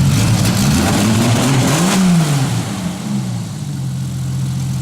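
Jeep Cherokee engine revved once: its pitch climbs to a peak about two seconds in, then falls back and settles into a steady idle.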